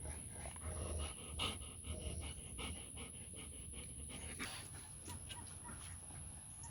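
A dog panting fast and evenly, about four to five breaths a second. The panting loosens and becomes more irregular after about four seconds.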